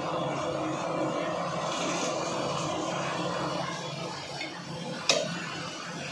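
A butcher's cleaver chops once through goat legs onto a wooden log chopping block: a single sharp knock about five seconds in, over a steady background din.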